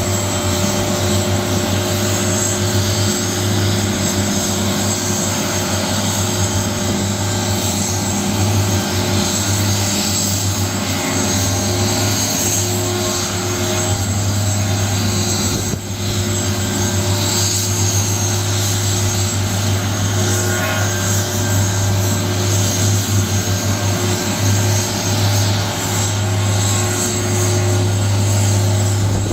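Police helicopter running steadily: a low, even rotor drone with a high turbine whine above it.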